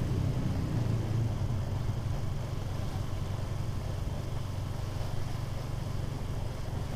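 Motorcycle engine running steadily while riding, a low drone with road and wind noise, slightly louder in the first second.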